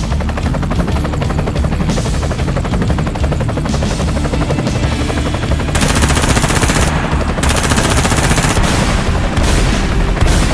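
Machine-gun fire sound effect: a fast, unbroken run of shots over a low rumble, with two louder bursts a little past the middle.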